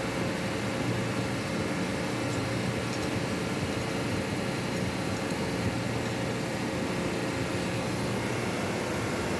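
Ship's air-conditioning compressor running, a steady machinery drone with a constant hum.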